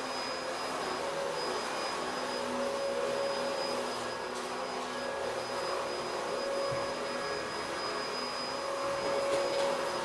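Vacuum cleaner running steadily: a constant motor whine and rush of air, with a steady high tone over it and only slight wavering in level.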